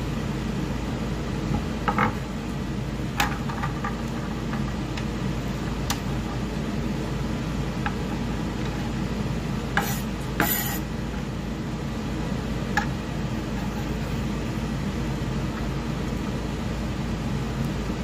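Chef's knife tapping now and then on a wooden cutting board while dicing a red bell pepper, over a steady low hum. A couple of sharper clacks come about ten seconds in.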